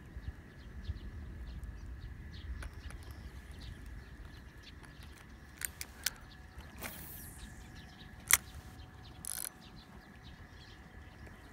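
Fishing reel being cranked, with mechanical clicking and a few sharp clicks, and a short falling swish about midway.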